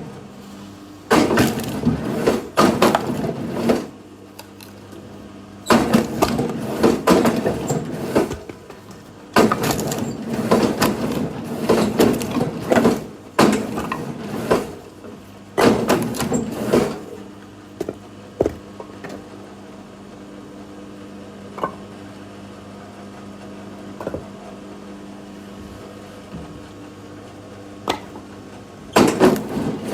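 Firewood being split and handled: bursts of wooden cracking and clattering a few seconds long, separated by quieter stretches with single knocks. A faint steady hum runs underneath.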